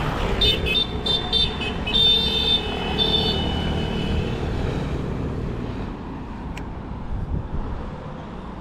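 Road traffic running steadily, with a series of short high-pitched squeals over the first three seconds or so.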